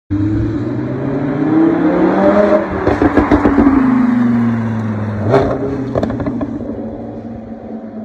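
Lamborghini Huracán's V10 revving hard as it accelerates past, its pitch rising, then crackling and popping from the exhaust as the revs fall. A couple of sharp pops follow, and the engine fades as the car pulls away.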